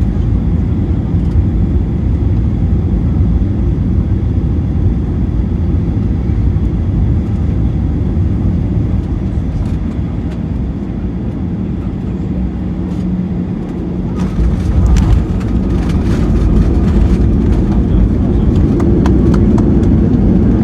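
Boeing 737-800's CFM56 jet engines on landing: a loud, steady low rumble. About two-thirds of the way in, the rumble swells and sharp crackles come in over it.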